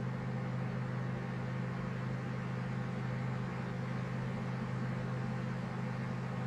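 A steady low hum with a faint hiss underneath, unchanging throughout: background machine or electrical noise in the room.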